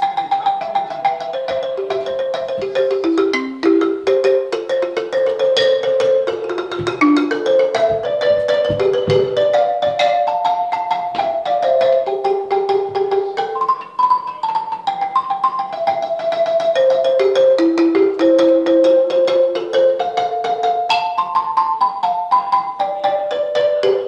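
Large wooden-bar marimba played with mallets: a quick, continuous melody of struck, ringing notes moving up and down, with a few deep thuds about a third of the way in.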